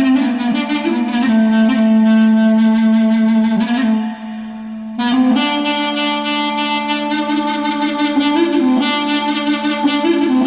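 Instrumental background music: a melody over a long-held low note. It drops back briefly about four seconds in and comes back in full about a second later.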